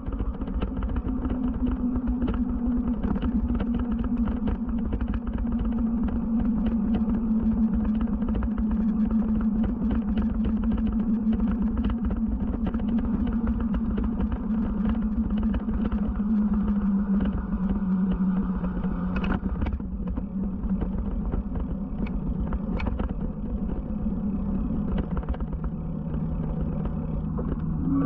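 Electric bike motor whining steadily, its pitch sinking slowly over the ride, over a constant low rumble of wind and tyres on the action camera's microphone, with a couple of brief clicks near the end.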